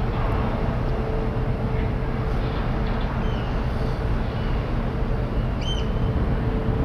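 Steady low rumble and hum of the ferry Pride of Rotterdam's machinery as the ship approaches, with one steady humming tone. A few short, high chirps sound over it, the clearest near the end.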